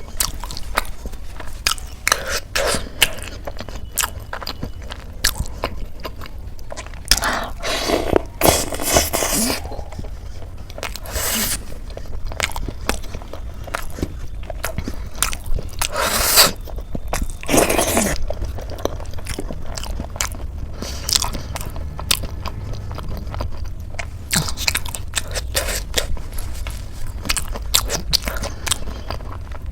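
Close-miked mukbang eating: a person biting and chewing a crisp khasta samosa with ghugni, with many small wet chewing clicks and several louder crunching bites.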